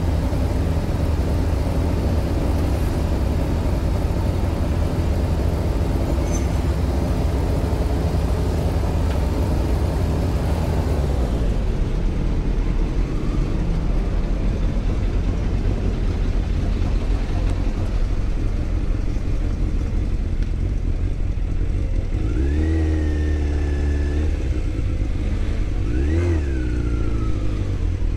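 Yamaha Fazer 600's inline-four engine running steadily, then revved twice near the end, the pitch climbing and dropping each time.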